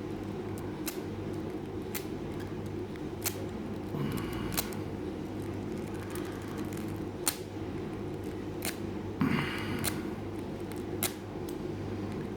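Lock picks raking the pin stack of an Abus 70AL padlock against tension: scattered sharp clicks and two short scrapes, over a steady low hum.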